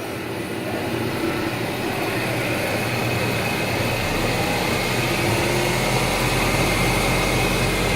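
Wood lathe running with a workpiece spinning while its variable-speed crank takes it from about 1,000 RPM up past 2,400 RPM. The machine grows steadily louder, and a low hum comes in about halfway.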